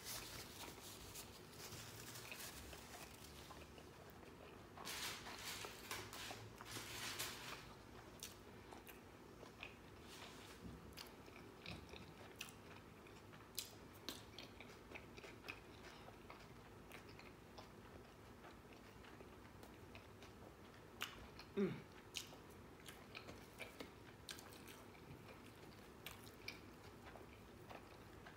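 Close-up chewing and biting of food, with wet mouth clicks throughout and a run of louder crunchy bites about five to seven seconds in. A brief low sound about twenty-one seconds in is the loudest moment.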